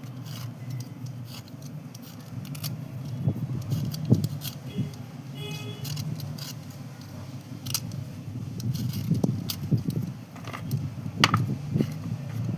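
White slate pencils being handled and scraped dry: scattered sharp clicks and small crunches, the loudest about 4 s and 11 s in, over a steady low hum.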